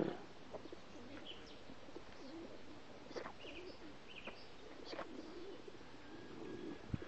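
Two Staffordshire bull terriers growling softly as they play tug-of-war with a toy, with a few short high chirps scattered through and a sharp knock near the end.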